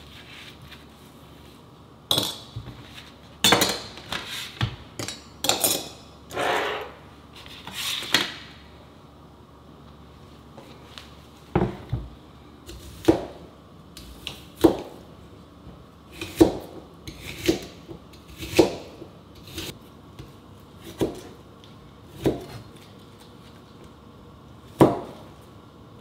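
A chef's knife chopping asparagus on a cutting board: about a dozen separate, irregularly spaced knocks in the second half. Before that come a few clatters and rubbing sounds of kitchen handling.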